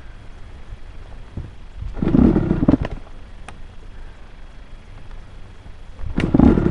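Dirt bike engine running low on a trail, with two short bursts of throttle, about two seconds in and again near the end.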